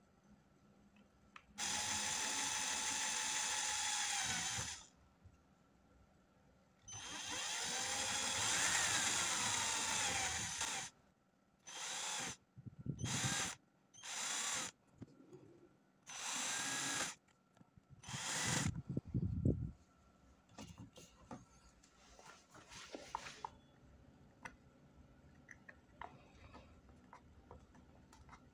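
Cordless drill running in bursts while drilling holes into a PVC plastic housing: two longer runs of about three seconds each, then five short runs. After that come faint small clicks and taps.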